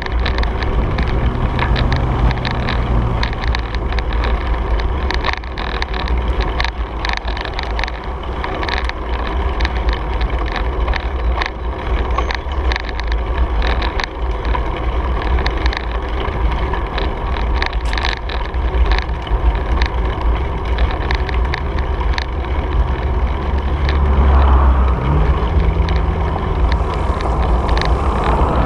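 Wind buffeting a handlebar-mounted action camera's microphone as a bicycle rolls along a paved trail, with a heavy rumble and frequent small clicks and rattles from the bike and mount over the surface. Near the end a low engine hum joins in.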